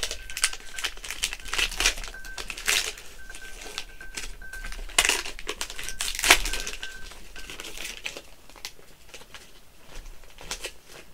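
Baseball card pack wrapper crinkling and tearing as it is opened, in irregular crackles that are busiest in the first few seconds and again about five to seven seconds in.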